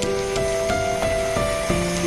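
Background music: a slow melody of held notes, each lasting about half a second before changing pitch, over a steady hiss.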